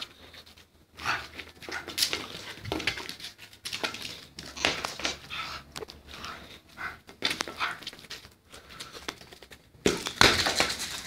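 Small dog panting in irregular short huffs as it noses a ball along a concrete floor, with a louder rustle near the end.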